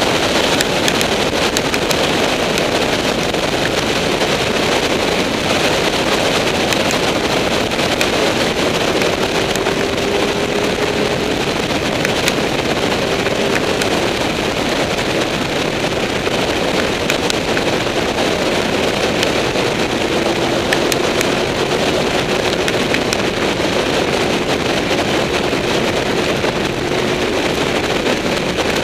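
Onboard sound of a Honda VFR800 motorcycle ridden at steady speed: heavy wind rush on the camera microphone over the engine's drone, whose pitch drifts slightly up and down.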